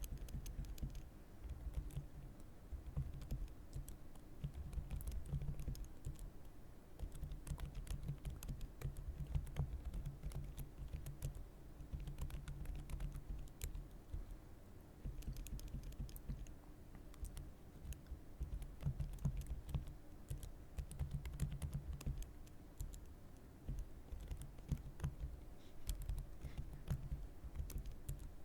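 Typing on a computer keyboard: quick runs of key clicks lasting a few seconds each, broken by short pauses.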